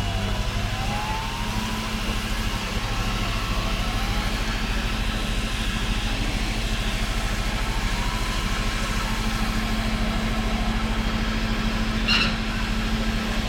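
Fire engine's motor running steadily, with a siren wailing slowly up and down in the background. A short sharp pop sounds near the end.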